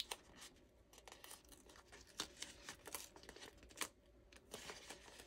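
Faint rustling and crinkling of a paper sticker sheet in the hands as a sticker is picked at and peeled from its backing, with a few short ticks.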